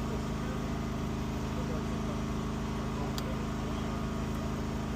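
An engine idling steadily with an even low hum. A single short click about three seconds in.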